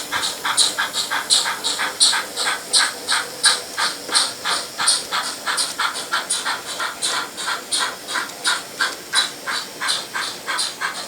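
Steam chuffing from the sound units of two double-headed model steam locomotives: a steady, even rhythm of about three to four chuffs a second.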